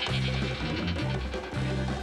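Music with a repeating low bass line of short notes.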